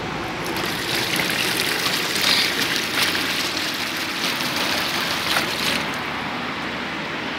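Water running and splashing in a shallow muddy ditch: a steady rush with many small splashes.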